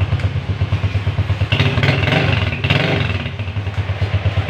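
Racal 150 enduro motorcycle's engine running with an even pulsing beat, blipped up to a brief rev about a second and a half in before settling back.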